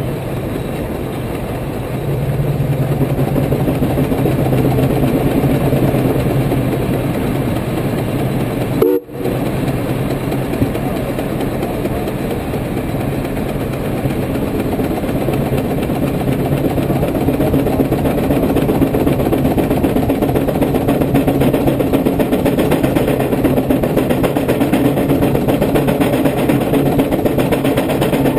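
110 hp Case steam traction engine working against a brake, its exhaust running steadily from the stack. The sound grows louder about two seconds in and again through the second half, with a brief click and dropout about a third of the way through.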